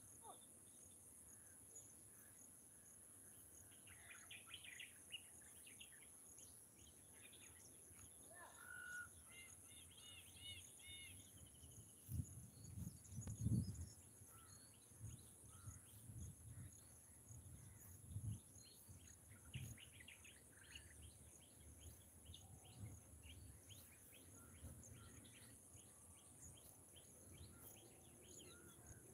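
Faint outdoor ambience: a steady high insect drone with scattered bird chirps. A few soft low thumps come about halfway through. The elephant itself is not heard.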